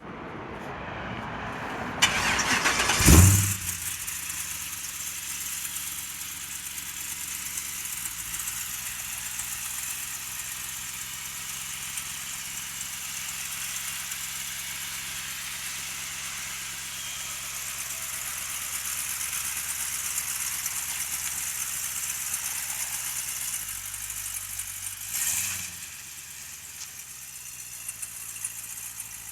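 Chevrolet Tracker's swapped-in 6.0-litre LS V8 cranking and firing up about two seconds in, flaring loudly as it catches. It then settles into a steady idle, with a brief rev about 25 seconds in.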